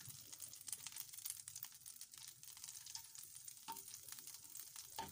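Butter sizzling as it melts in a hot frying pan: a faint, steady crackling hiss.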